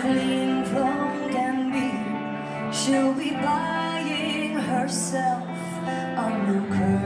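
Background music with held notes and chords.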